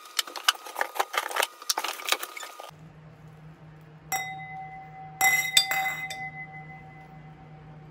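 Glasses clinking: a quick run of clinks and rattles, then a glass struck and ringing with a clear, slowly fading tone about four seconds in, and another cluster of clinks a second later that ring on.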